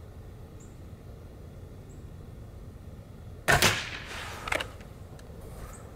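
A single shot from a Beeman QT-GP .22 air rifle about three and a half seconds in: a sharp crack with a short ringing tail. A fainter click follows about a second later.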